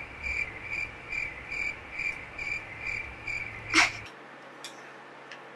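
Cricket chirping, a regular high chirp about three times a second. It stops just before a sharp click a little under four seconds in.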